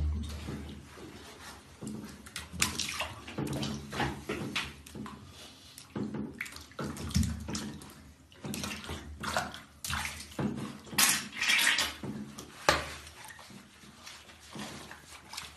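Water splashing and sloshing in a bathtub as a beagle puppy is washed by hand, coming in irregular bursts with a few sharp knocks.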